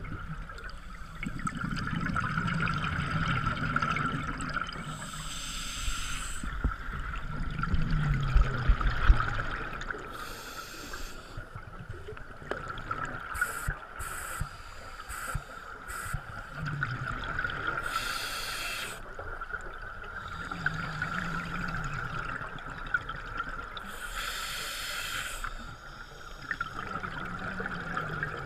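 Scuba diver breathing through a regulator, heard underwater: a hissing inhale roughly every six to eight seconds, with low bubbling exhales in between.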